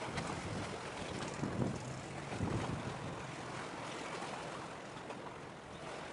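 Wind buffeting the microphone in gusts over a steady hiss of sea and surf; the gusts ease after about three seconds.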